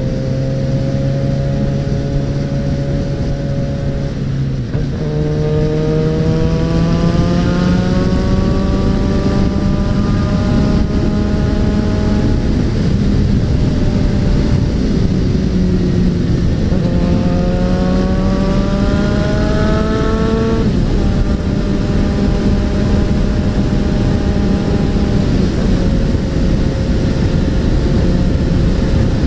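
Suzuki Bandit 650N inline-four engine pulling under way, its note climbing steadily twice with the throttle and dropping sharply at a gear change about two-thirds of the way through, then holding steady. Wind rushes over the bike-mounted microphone throughout.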